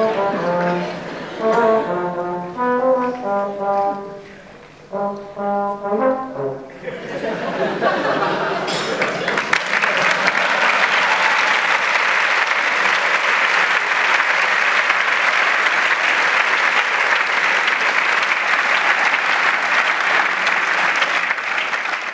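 A long straight brass trumpet plays a short phrase of separate notes, then stops about seven seconds in, and an audience applauds steadily.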